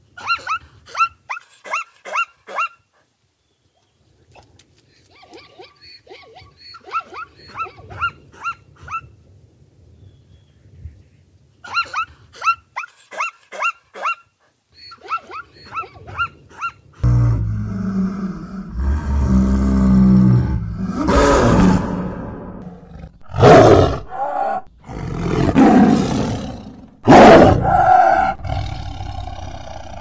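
Zebras calling in four runs of short, high, barking yelps at about three a second. About halfway through, this gives way to a tiger roaring and snarling loudly in several long bouts.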